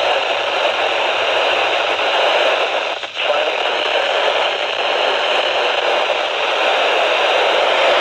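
Steady static hiss from a weather radio receiver on a weak signal, with the broadcast drowned out; the hiss dips briefly about three seconds in.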